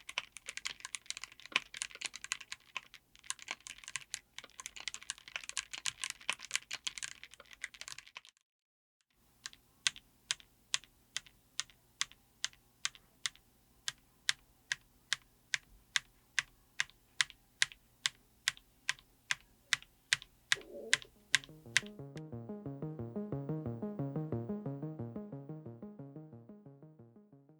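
Typing on a mechanical keyboard fitted with Gateron Magnetic Jade Ultra linear switches: a fast run of keystrokes, a second's pause, then single key presses about twice a second. Near the end the keys stop and a low pulsing synth tone swells and fades away.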